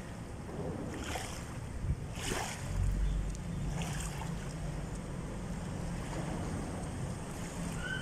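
Small waves lapping and splashing at the water's edge every second or so, over steady wind buffeting the microphone, with a stronger gust about three seconds in.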